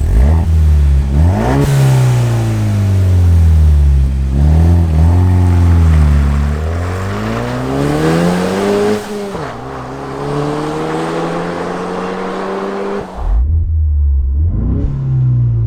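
Ford Bronco's 2.3-litre EcoBoost four-cylinder, fitted with an XForce Varex valved catback exhaust, accelerating through the gears. Its pitch climbs and drops back at each upshift. About 13 s in, the throttle is lifted: the rushing noise cuts off suddenly and the engine settles to a lower, steady note.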